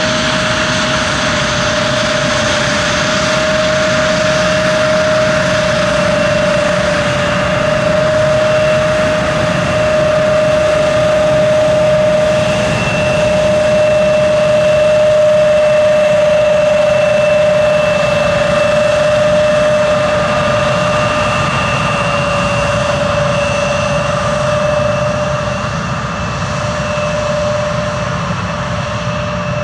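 Embraer 170's twin General Electric CF34 turbofan engines running with a loud, steady jet whine whose pitch drifts slightly lower, swelling a little in loudness about halfway through.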